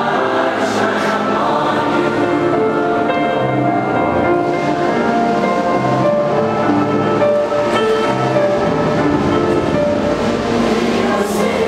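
A large choir singing a slow song in long held notes.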